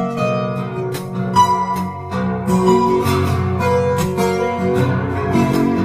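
Fingerstyle solo on a Lakewood cutaway steel-string acoustic guitar: bass notes, chords and a plucked melody played together.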